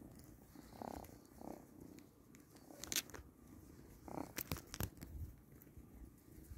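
Faint rustling and crinkling of a black fabric ground sheet as a tabby kitten paws at and bites its edge, with a few sharp crackles around the middle.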